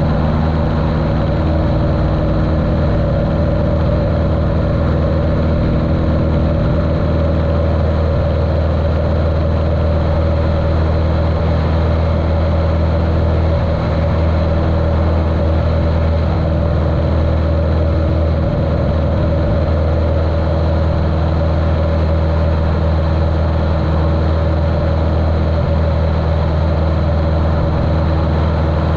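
1973 Cessna 150L's Continental O-200 engine and propeller running steadily at constant power, muffled by the GoPro's waterproof case.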